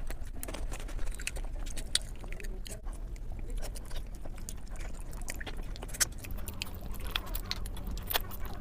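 Close-miked chewing of spicy biryani, a run of irregular wet mouth clicks and smacks.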